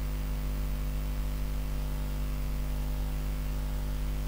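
Steady electrical hum with a stack of low tones, under an even background hiss, with no other sound on top.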